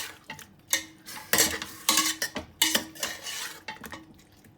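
A spoon stirring chicken pieces in oil in a pressure cooker pot on high flame, scraping and clinking against the pot in a run of irregular strokes.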